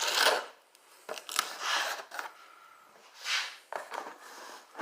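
A box being opened and the hive cover parts inside handled: a series of about five short scraping and rustling sounds with short pauses between them.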